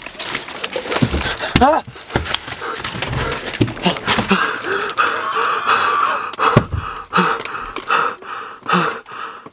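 A person panting and gasping heavily inside a car, in quick, repeated breaths, with a short voiced cry about a second and a half in.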